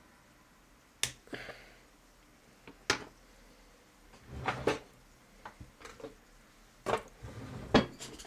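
Irregular sharp clicks and short knocks from handling a small metal-cased microwave turntable motor in the hand, the loudest near the end.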